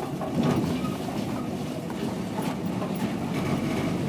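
A vehicle driving slowly along a rough dirt road: a steady low rumble of engine and tyres, with scattered knocks and rattles from the bumps.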